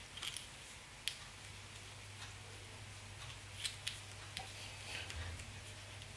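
Several faint, sharp snips and clicks of a small fly-tying blade or scissors trimming stray fibres on a streamer fly held in the vise.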